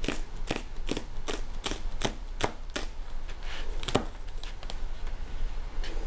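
Green onions being chopped with a French chef knife: a run of quick, even knife strikes, about two to three a second, thinning out to a few scattered strikes in the second half.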